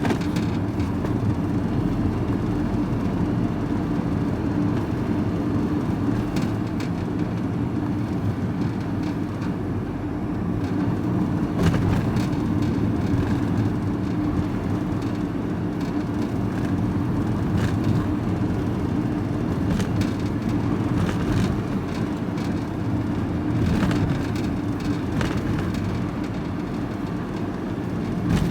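Van driving along a road, heard from inside the cab: a steady engine and tyre drone with a few short knocks and rattles from bumps.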